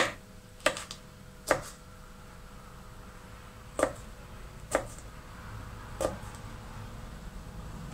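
Kitchen knife chopping small sweet peppers on a plastic cutting board: six sharp knocks, spaced unevenly, the last about six seconds in.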